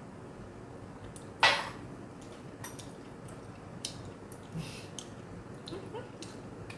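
Quiet eating sounds: a short noisy burst about a second and a half in, then scattered small clicks and smacks of chewing.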